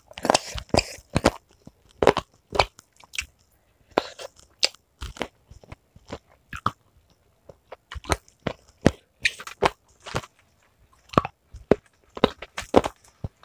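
Close-miked eating: a person biting and chewing crunchy fried food, mukbang style, with irregular clusters of sharp crunches and short pauses between mouthfuls.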